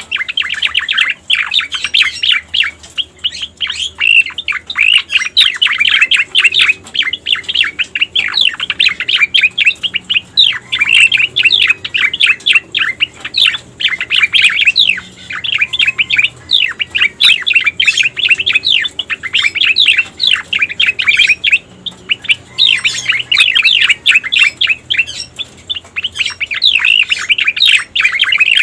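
Cica koreng (cucak koreng) bird singing a lure call: long runs of rapid, high chirps that follow one another without a break, pausing briefly now and then.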